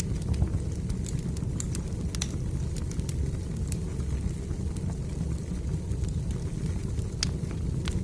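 Wood fire burning in a fireplace: a steady low rumble of the flames with frequent small, sharp crackles and pops at irregular intervals.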